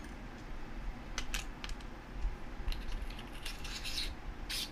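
Handling of a Fenix PD32 UE flashlight: batteries slid into the tube with a few small clicks, then the threaded tail cap screwed back onto the body, giving a run of short rasping scrapes that grows louder near the end.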